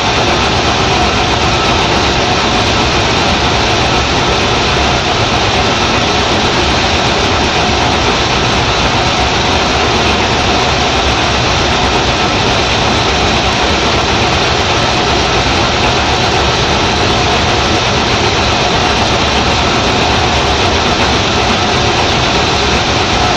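6LN-120 rice huller running steadily while it mills rice, its motor and milling rotor making a dense, even mechanical noise as the milled grain streams out of the outlet.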